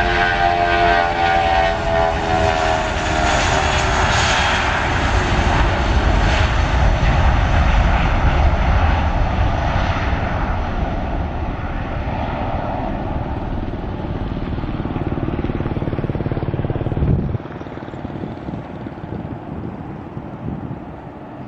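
Airliner passing close by, its engine noise carrying a set of tones that drop in pitch as it goes past, then fading slowly as it moves away.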